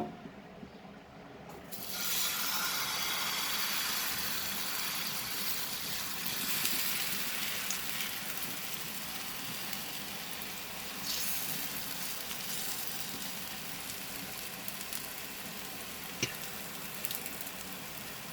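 Gram flour (besan) batter sizzling in a hot oiled pan as it is spread out: the sizzle comes up about two seconds in, then runs steadily and slowly eases. A single sharp knock right at the start.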